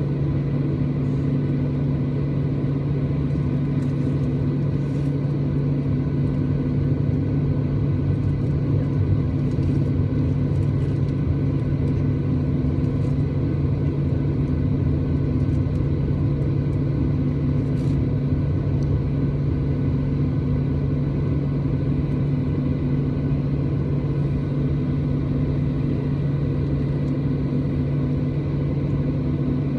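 Cabin noise over the wing of a Boeing 737-800 on the ground, its CFM56-7B turbofans running steadily at idle: a low hum with a few faint, steady high tones above it.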